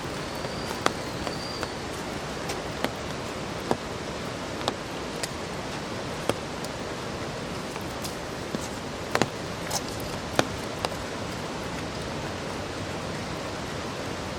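Steady rushing of water, with scattered sharp ticks every second or so.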